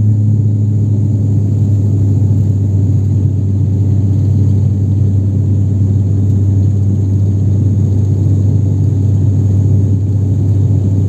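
Steady low drone of an ATR 72-600's turboprop engines and propellers heard inside the passenger cabin, climbing out after takeoff.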